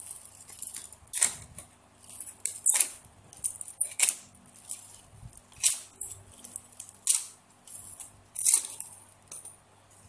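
A plastic bottle being cut into a long strip, pulled through a bottle-cutting tool in hand-over-hand strokes. Each pull gives a sharp scraping rasp, six of them about a second and a half apart.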